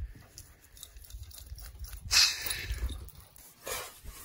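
A short puff of air, like a snort or sharp exhale close to the phone's microphone, about two seconds in, over a low rumble of handling or wind on the microphone.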